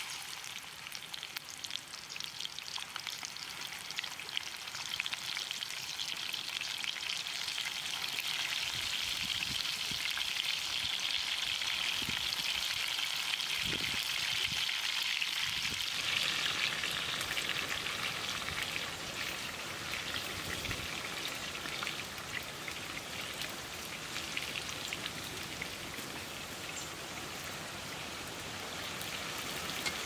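Chicken pieces frying in a pan of hot oil: a steady sizzle that builds over the first few seconds and eases off a little about halfway through.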